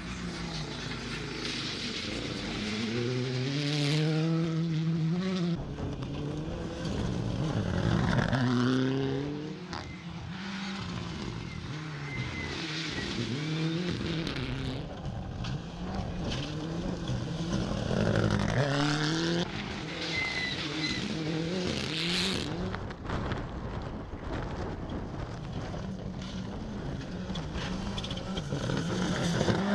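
Car engines revving hard, their pitch climbing again and again as they accelerate through the gears, with cars passing by about three times.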